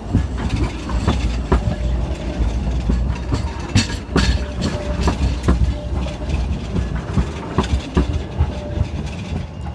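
Class 399 Citylink tram-train passing close by: a steady low rumble with a run of irregular sharp clacks from its wheels on the rails.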